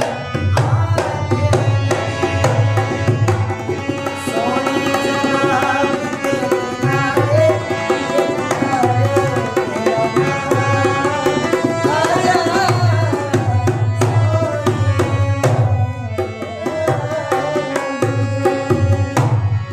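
Ragni folk music: a hand drum beating a steady rhythm under melodic accompaniment, with a short lull about three quarters of the way through and a drop in level at the very end.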